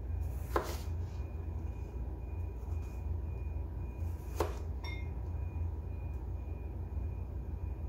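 Chef's knife slicing a Roma tomato on a plastic cutting board, the blade knocking on the board twice, about half a second in and again about four and a half seconds in, with a brief light ting just after the second knock. A steady low hum sits underneath.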